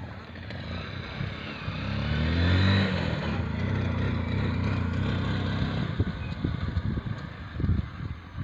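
Motorcycle sidecar tricycle passing close by, its engine rising in pitch as it pulls up and is loudest about three seconds in, then running steadily as it goes past. A few low thumps come near the end.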